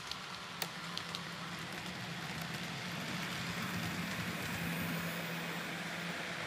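N gauge model train running along the track: a steady motor hum and wheel rumble that grows louder in the middle as the train passes close, with a few light clicks in the first second or so.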